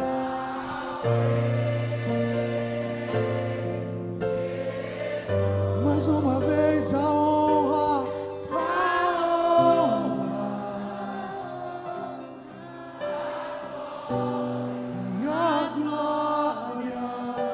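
Slow Christian worship song: held chords with a deep bass note that changes every second or two, under singing voices that hold long, wavering notes.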